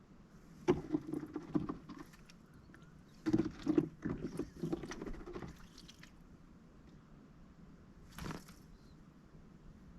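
Mallard duck splashing and dabbling in a shallow water bowl: two bouts of irregular splashing, then one short splash near the end.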